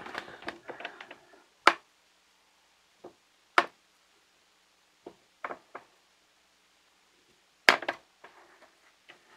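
Sharp clicks and taps of fingers and fingernails on the hard plastic case of a toy pinball game as a sticker strip is picked at and peeled off its top, with a short scratchy rustle at the start. Three taps stand out, a couple of seconds apart, with fainter ones between.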